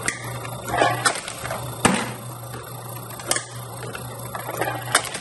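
Homemade belt-driven can crusher running off an old drill press motor: a steady low motor hum, with a sharp clank from the crank-driven ram about every one and a half seconds.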